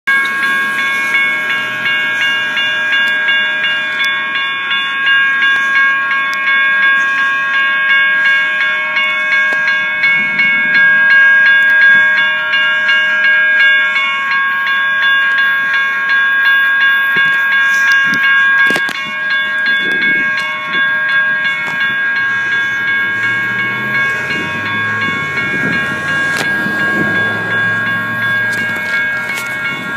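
Several electronic railroad crossing bells (GS and WCH E-bells) ringing at once in steady, overlapping tones at an activated grade crossing, gates down. In the last several seconds a low rumble builds under the bells.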